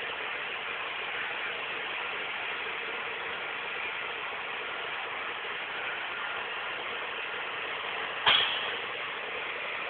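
Steady vehicle noise, with one sharp bang a little over eight seconds in that dies away within about half a second.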